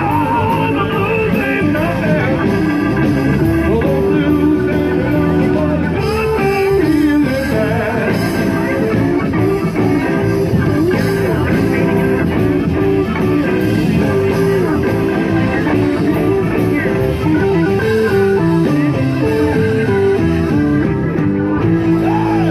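Blues band playing, with guitar to the fore, without words.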